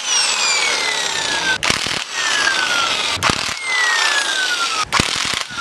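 Handheld power driver with a 14 mm socket backing out the motorcycle's four fork-clamp pinch bolts. It runs in four short runs of a second or so, each with a whine that falls in pitch, separated by sharp clicks as the socket is moved from bolt to bolt.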